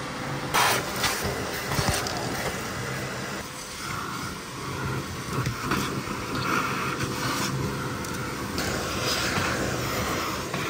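Shop vacuum running, its hose nozzle sucking along the cab carpet and around the seat rails of a pickup truck. A few sharp knocks of the nozzle against the seat brackets come in the first two seconds, and the suction note changes through the middle as the nozzle is pressed in and moved.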